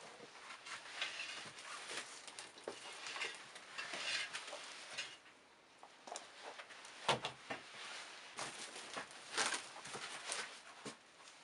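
Rustling and handling noise of shoes being picked up and set down on a table, with a few sharper knocks as a pair is put down, the loudest about seven and nine seconds in.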